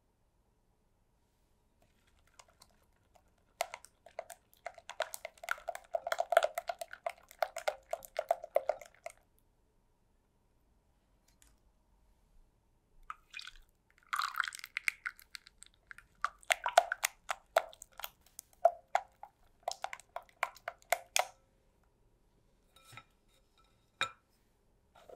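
A wire whisk stirring liquid egg-and-sugar batter in a glass bowl: rapid, irregular clicking and swishing against the glass, in two spells of several seconds each. A couple of light knocks come near the end.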